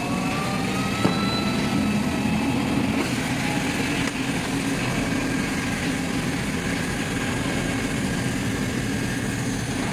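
Automatic fabric spreading and cutting machinery running steadily: a continuous mechanical hum with faint high whining tones, one of them rising slightly near the start, and a single click about a second in.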